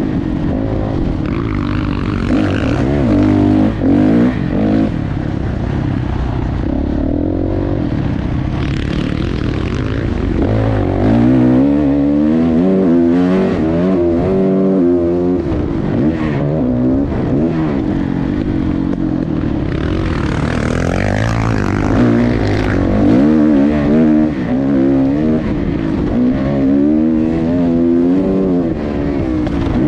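Dirt bike engine ridden on a motocross track, its pitch climbing and falling again and again as the throttle is opened and shut over the jumps and turns, with wind noise over the microphone.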